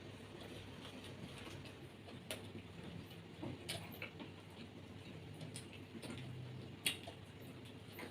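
Quiet eating sounds: scattered small clicks and smacks of people eating, with one sharper click about seven seconds in.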